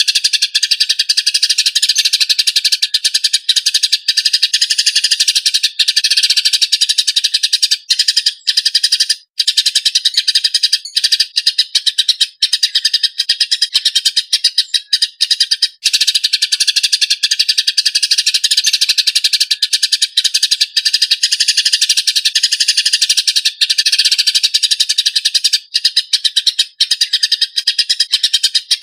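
Eurasian tree sparrows in a fast, rough, densely packed stream of chirps, the harsh chatter of sparrows fighting, with only a few brief breaks.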